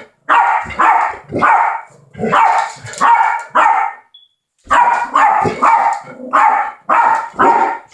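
Pet dogs barking repeatedly, about two barks a second, at a smoke detector. In a short pause about four seconds in, the detector gives one brief high chirp.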